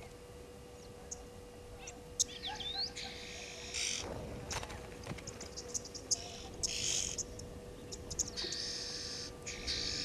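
Small birds chirping and twittering at the water's edge: many short high calls, some sliding downward, with stretches of buzzier, harsher chatter. A faint steady hum runs underneath.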